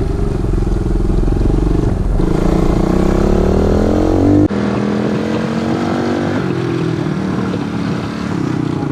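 A 110cc pit bike's single-cylinder four-stroke engine running under way, its revs climbing steadily for a couple of seconds. There is an abrupt change about four and a half seconds in, and then the revs rise and fall again.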